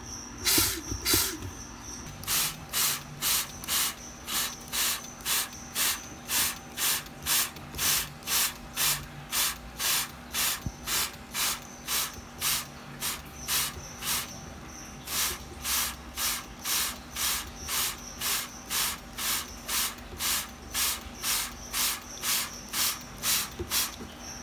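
Hand spray bottle squirting water in quick, even puffs, two to three a second, with short breaks near the start and a little past halfway. It is misting a frog's foam nest to wash the newly hatched tadpoles out.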